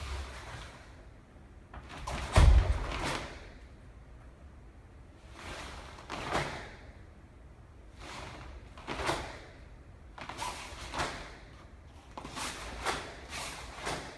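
Karate gi snapping and swishing with each strike and block of a kata, in a series of short sharp bursts, with a heavy low thump about two seconds in.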